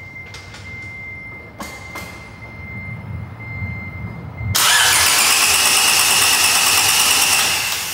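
Honda B18C 1.8-litre DOHC VTEC four-cylinder cranking on the starter, then firing about four and a half seconds in and running loudly: its first start-up after the engine-bay rebuild. A steady high whine is heard before it catches.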